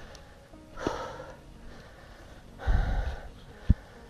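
Short noisy puffs of air close to a body-worn camera's microphone, about a second in and again nearly three seconds in, the second with a low thump. Near the end comes one sharp click as a finger touches the camera.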